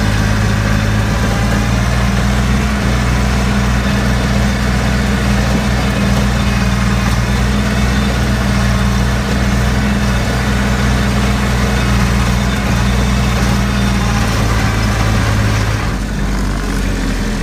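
Compact farm tractor's engine running steadily under way as the tractor drives along a sugarcane row. Near the end the engine note shifts and the sound drops slightly.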